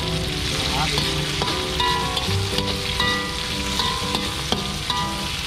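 Sliced onions and chillies sizzling in hot oil in a wok as they are stir-fried with a metal slotted spatula, which scrapes and knocks against the pan now and then.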